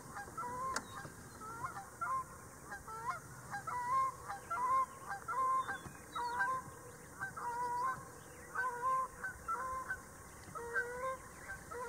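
A flock of geese honking as they fly off, many short calls overlapping one after another.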